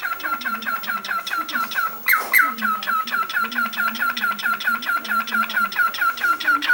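Cockatiel giving a fast run of short, repeated chirping calls, about six a second, with one louder call about two seconds in.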